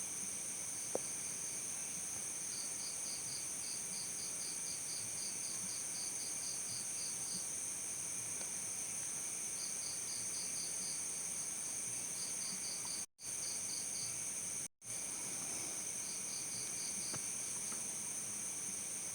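Crickets chirping: a continuous high-pitched trill with runs of rhythmic chirps at about four pulses a second over it. The sound cuts out briefly twice about two-thirds of the way through.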